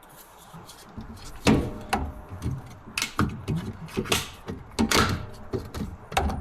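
Irregular knocks, clanks and clinks of tools and metal car parts being handled while a part is taken off during a rear shock job, some strikes ringing briefly.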